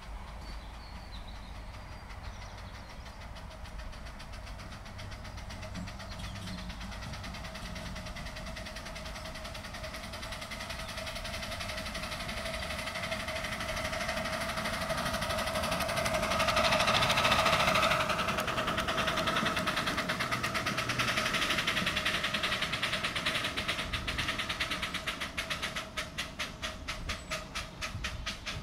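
Miniature live-steam locomotive hauling a train of wagons, getting louder as it passes about 17 seconds in and then fading. Near the end its exhaust beats come through as a fast, even chuffing as it labours up a 1:20 gradient on damp rails.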